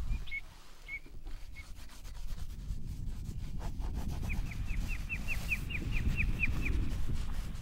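Sketching strokes scratching and rubbing on a drawing board, over a low rumble of wind on the microphone. From about four seconds in, a bird gives a quick run of short chirps, about five a second.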